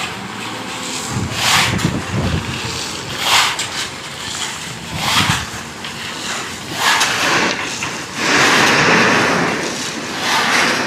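Wind buffeting the microphone in irregular gusts, over a rush of open water.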